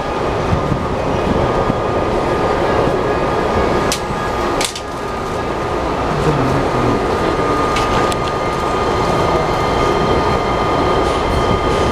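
Inside an E217 series commuter train car standing at a station with its doors open: a steady hum of onboard equipment with a thin, high, steady whine. Two sharp clicks come about four and five seconds in.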